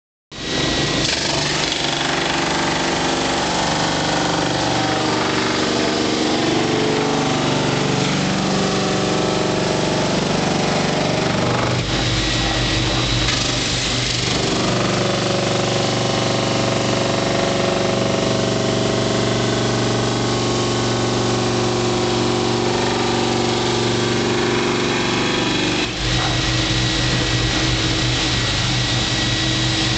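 Homemade drum sander running steadily while a glued wooden jigsaw-puzzle panel is fed through it and sanded down to an even thickness. The tone of the machine noise changes briefly twice, about twelve seconds in and again near the end.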